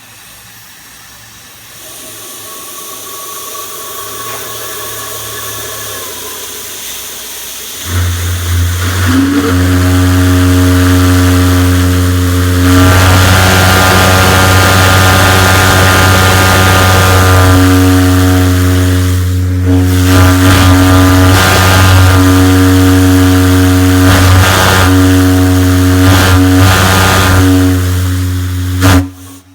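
Steam hissing, then a large deep-toned steam whistle opens about eight seconds in and is held for about twenty seconds. Its note wavers and pulses near the end as the valve is worked, and it cuts off sharply.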